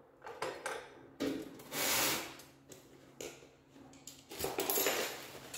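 Handling noises: a scatter of clicks and knocks, with two louder rustling scrapes about two seconds in and again near the end.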